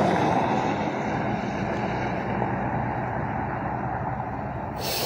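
Steady rumble of a running vehicle engine with a low hum, slowly easing, and a brief scratchy crackle just before the end.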